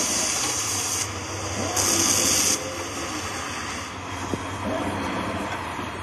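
Gas cutting torch hissing as it burns. The hiss is loud for about the first second and again around two seconds in, then drops low. A steady low engine hum runs underneath.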